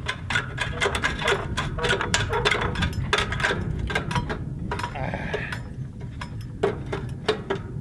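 Quick, irregular metallic clicks and knocks, several a second, from metal parts being worked by hand at the end of an irrigation pipe, over a steady low rumble.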